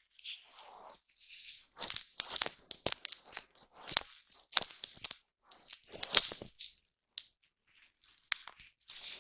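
Foam brush rubbed against a microphone up close: irregular bursts of scratchy, crackling brushing with sharp clicks, separated by short pauses and thinning to scattered clicks near the end.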